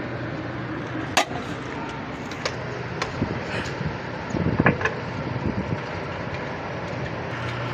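Bharat 7.5 kW single-phase generator running steadily after repair, with a few scattered clicks and knocks, the loudest about a second in and a short cluster near the middle.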